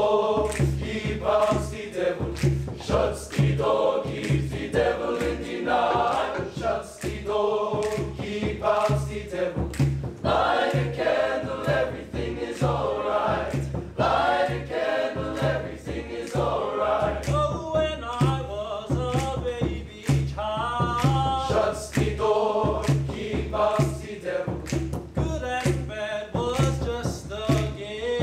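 Boys' school choir singing a song together, with a steady beat of hand claps about every half second.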